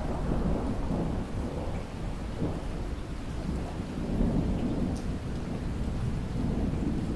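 Steady rain with low, rolling thunder that swells in at the start and again about four seconds in.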